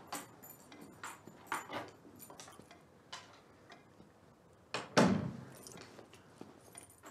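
Keys and a door lock clicking, then a wooden door shutting with a loud thump about five seconds in.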